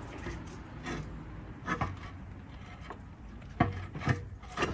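Scattered light clicks, knocks and rubbing of plastic and rubber engine-bay parts being handled, as a gloved hand works the rubber air intake duct loose. The sharpest knocks come about three and a half seconds in and again near the end.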